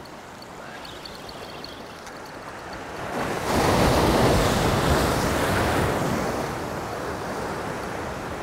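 Sea swell breaking against jetty rocks about three seconds in: a sudden loud rushing splash that slowly dies away over the next few seconds, over steady surf and wind.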